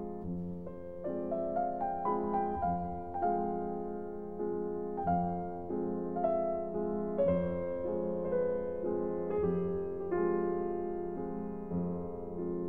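Slow solo piano music, single struck notes ringing on in a melody that climbs over the first few seconds and then drifts back down.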